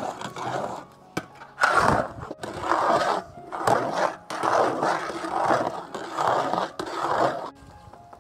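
Spatula scraping and stirring in a large cooking pan in repeated noisy strokes, about one a second.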